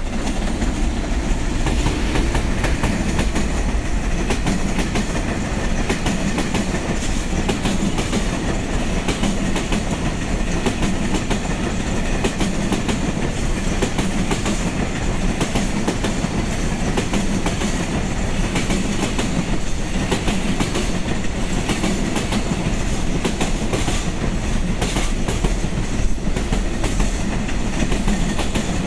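Freight train running through a station without stopping: a long string of wagons passing steadily, their wheels clacking over the rail joints, with one sharper clack near the end.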